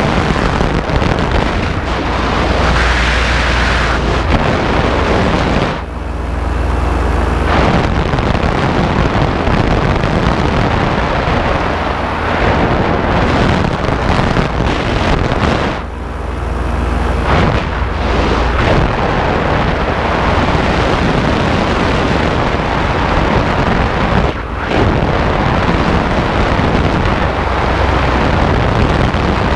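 Heavy wind buffeting on the microphone over a paramotor's engine running in flight. Twice, about six seconds in and again about sixteen seconds in, the wind noise eases for a second or two and the engine's drone comes through more clearly.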